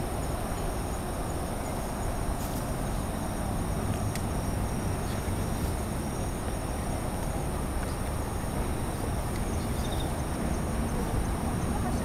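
Night insects chirping steadily in several high, unbroken tones over a low, steady rumble.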